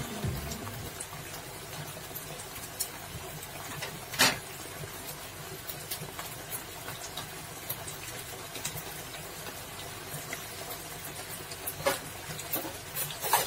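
Sweet and sour tomato sauce with vegetables simmering in a wok: a steady, quiet bubbling with scattered small pops and a few sharper clicks, the strongest about four seconds in and near the end.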